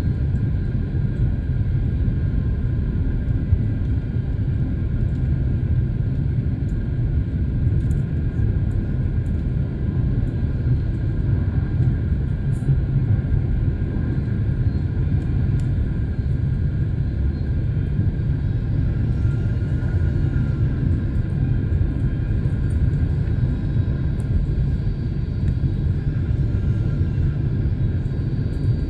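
Steady low rumble of a jet airliner's cabin in flight: engine and airflow noise heard from inside the passenger cabin, unchanging throughout.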